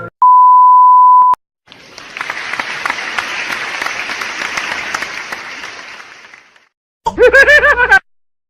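A string of separate sound effects: a steady censor-style bleep for about a second, then a crowd clapping for about five seconds, fading out, then a short, loud, wavering warble of a sound near the end.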